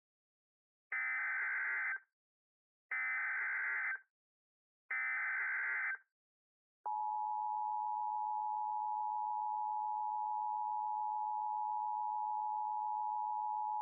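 Emergency Alert System SAME header: three one-second bursts of warbling digital data tones with about a second's pause between them. About seven seconds in, the steady two-tone EAS attention signal starts, announcing that an emergency alert message follows.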